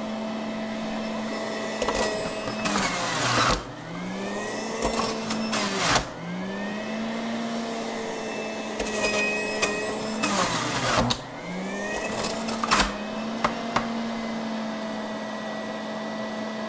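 A Breville centrifugal juicer's motor runs with a steady whine. About three seconds in, and again about ten seconds in, carrots pushed down the feed chute are shredded with a loud grinding rasp. Each time the motor's pitch drops under the load, then rises back as it recovers.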